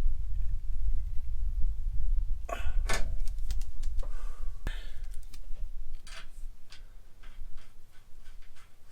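Scattered clicks and clacks of objects being handled, over a low rumble that fades out about six seconds in.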